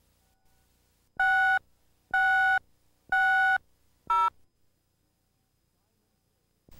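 Countdown beeps on a cable TV production slate: three steady electronic beeps of the same pitch, about a second apart, then a shorter fourth beep at a different pitch.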